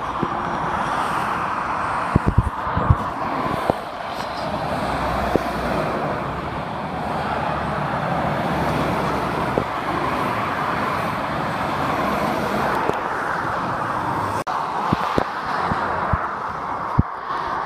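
Steady road traffic noise from a dual carriageway: the tyre and engine noise of cars and lorries passing, with a deeper rumble swelling in the middle as a heavy lorry goes by. A few short low thumps break through now and then.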